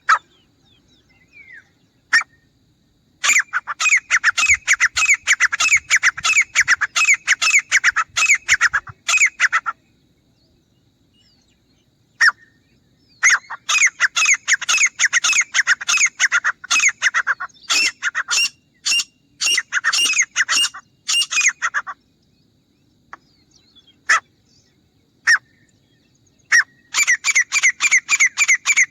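Grey francolin calling: three long bouts of rapidly repeated notes. The first starts about three seconds in, the second around thirteen seconds, and the third near the end, with a few single notes in the gaps between bouts.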